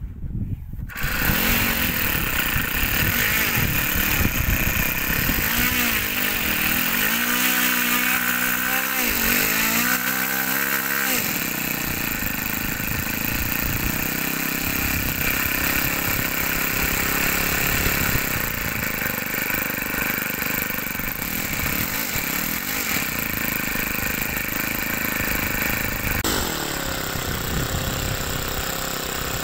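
RC model airplane's small internal-combustion engine starting about a second in and then running loudly with the propeller spinning; its pitch swings up and down several times around eight to eleven seconds in as it is throttled up and back.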